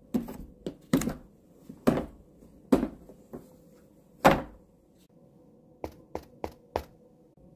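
Latches of a hard plastic rifle case snapping open one after another, then a louder hollow thunk as the lid swings open, the loudest sound here. Near the end come four quick light clicks about a third of a second apart.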